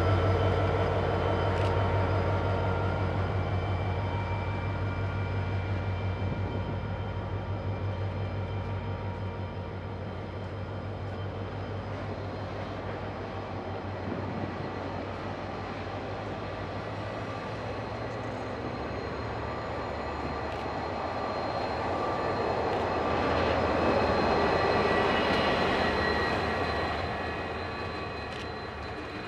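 KiwiRail DFB-class diesel-electric locomotives and passenger coaches rolling past close by: a steady diesel engine hum with wheel and rail noise. It swells again near the end as the rear locomotive goes by, then fades as the train pulls away.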